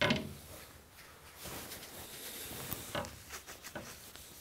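A cloth rag rubbing and wiping across a painted steel panel, cleaning off a stray dab of paint, with a brief thump right at the start.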